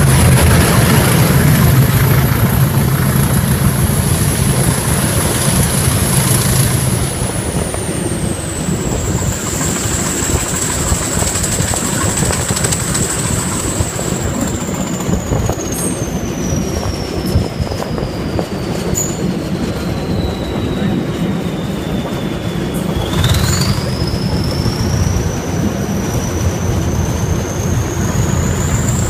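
English Electric Class 20 diesel locomotive working the train: its engine runs loud with a high turbocharger whistle. The whistle and engine note sink slowly as power is eased, then the whistle climbs sharply and the engine throb swells again about three-quarters of the way through as power is reapplied, over wheel and rail noise.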